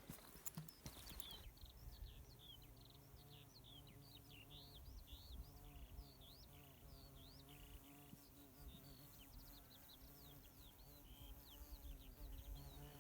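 Outdoor bird song: a long run of rapid high chirps and whistles, faint, with a low steady buzz underneath. Wind or handling bumps on the microphone in the first second or so.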